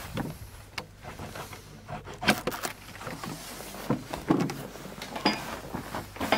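Padlock and metal hasp on a hut door being unlocked and the door pulled open, then someone stepping in: a string of separate metallic clicks, rattles and knocks.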